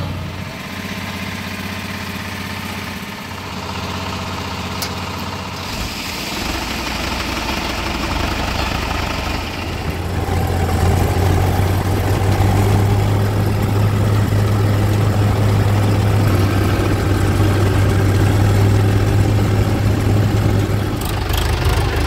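Tractor diesel engine running steadily, getting clearly louder about ten seconds in.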